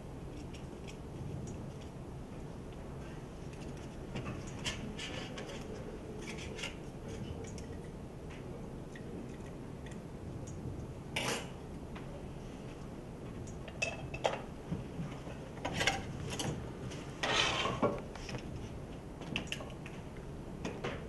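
Scattered clinks and clatters of kitchen utensils against steel trays, bowls and pans on a demonstration counter, with a few louder clatters in the second half, over a steady low room hum.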